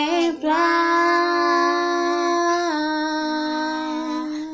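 A woman and a young girl singing a Portuguese worship hymn unaccompanied, holding one long note that steps down in pitch about two-thirds of the way through and then stops.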